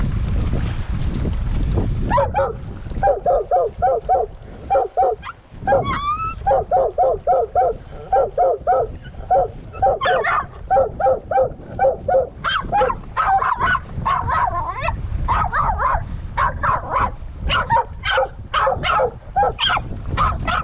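Mink-hunting dogs barking rapidly and insistently, about three or four barks a second, with a rising whine about six seconds in. From about ten seconds in the barks turn higher-pitched. Wind rumble on the microphone covers the first two seconds, before the barking starts.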